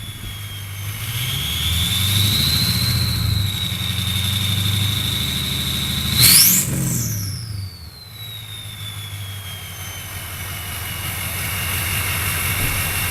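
Ford 6.0L Powerstroke V8 turbo-diesel running at high idle with its oversized Garrett turbocharger whistling steadily. About six seconds in, a quick rev sends the whistle sharply up in pitch, then it winds back down and settles.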